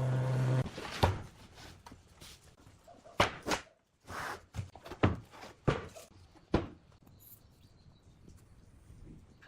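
A power tool's motor stops about half a second in, followed by a series of sharp knocks and thuds, about six in all, as of workpieces being handled and struck in a woodworking shop.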